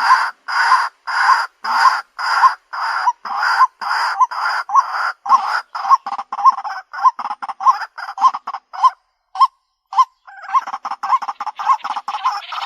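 White-breasted waterhen calling: a long run of repeated harsh croaking notes, about two a second at first and quickening, with a short break about nine seconds in before the calls resume.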